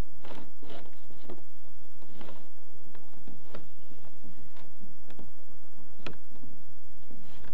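Irregular light clicks and taps, about a dozen spread out, from hands working the fittings of a plastic kayak, over a steady low rumble.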